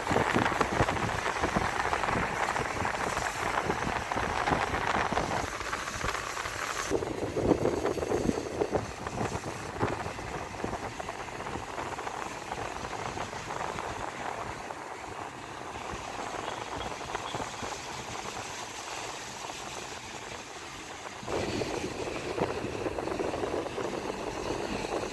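Steady rush of road and wind noise from a moving car. It is louder at first, drops for a long middle stretch, and rises again near the end.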